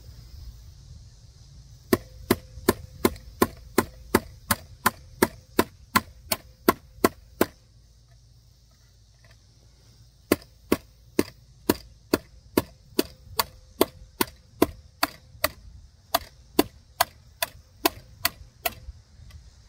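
A nail being hammered into a wooden board with the butt of an OTF automatic knife, in sharp, regular blows at about three a second. A run of about fifteen blows is followed by a pause of a few seconds, then another run of about twenty.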